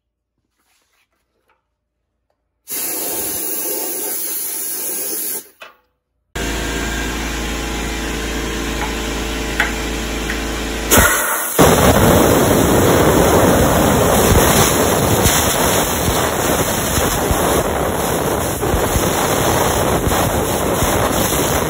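Compressed air blowing dust and loose rust out of the inside of a 1968 Corvette's boxed frame rails: a loud, steady hiss in three long blasts that start and stop abruptly, the first about three seconds in and the last running about eleven seconds.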